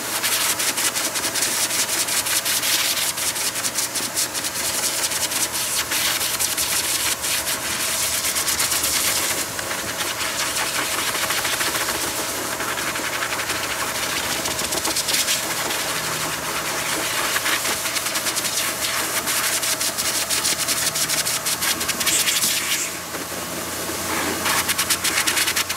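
Dog grooming blow dryer running through its hose: a steady rush of blown air over a faint motor hum, swelling and easing in loudness as it blows through a damp dog's coat.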